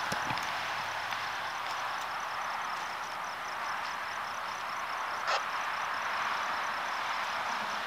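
Night insects (crickets) chirping in a fast, even pulse over a steady hiss, with a single short click about five seconds in.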